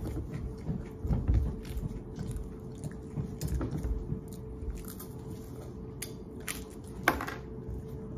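Two people biting into and chewing crunchy square crackers close to the microphone: irregular crisp crunches over steady chewing, with one sharper, louder crack about seven seconds in.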